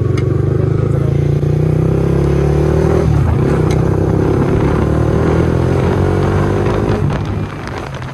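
Motorcycle engine under acceleration, its pitch climbing, with a shift about three seconds in and another climb before it eases off about seven seconds in.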